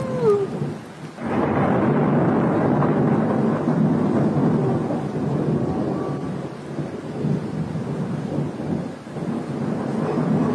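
Thunder rumbling over rain, starting about a second in and swelling and easing in waves. In the first moments a siren-like tone slides down in pitch and dies away.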